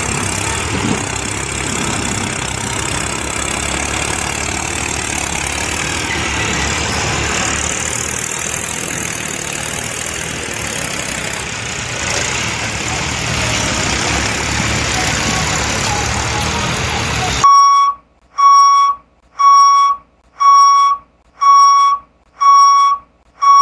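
A steady rushing noise like an engine running. About two-thirds of the way through it cuts off and a series of loud, evenly spaced electronic beeps follows, about seven of them, a little under one a second, like a vehicle's warning beeper.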